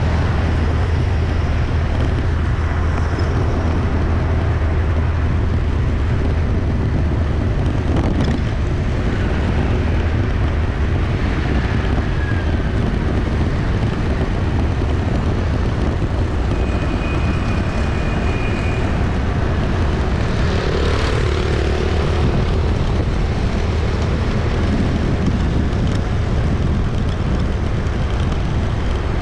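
Busy city street traffic: a steady, dense wash of passing engines and tyre noise. A short high tone comes about halfway through, and a brief louder surge a few seconds after.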